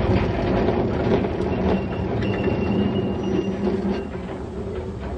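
Steam locomotive working hard on a steep climb, a loud continuous heavy rumble. A thin high-pitched tone sounds faintly from about two to four seconds in.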